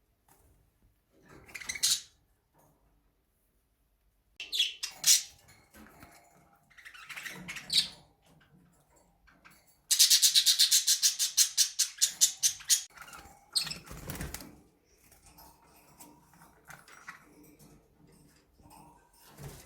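Budgerigars chirping and calling in short, scattered high-pitched bursts. About halfway through comes a rapid chattering trill of even notes that lasts about three seconds.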